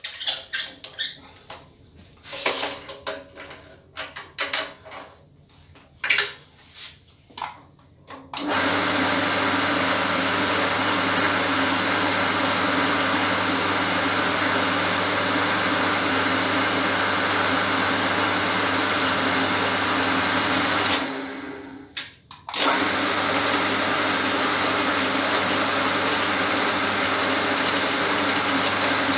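Scattered clicks and knocks of a metal workpiece being set on a rotary table. About eight seconds in, the drill press motor starts and runs steadily while a tapping head cuts 6 mm threads in a metal flange. It stops for a second or two a little after two-thirds of the way through, then starts up again.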